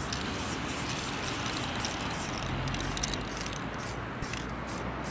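A steady rush of background noise with quick, high-pitched chirping pulses, about three to four a second.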